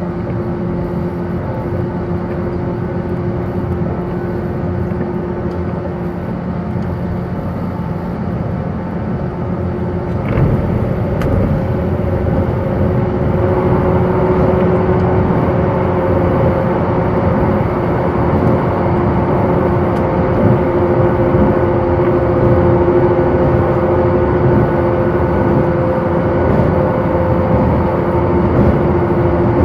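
JR 185 series electric train running, heard inside the carriage: a steady hum of several tones over the rumble of the wheels. About ten seconds in there is a knock, and the running sound grows louder after it.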